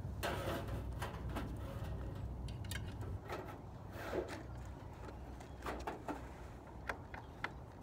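Irregular clicks, clanks and rattles from a loaded bicycle cargo cart of milk crates and scrap as the load is handled and strapped down, over a low steady rumble.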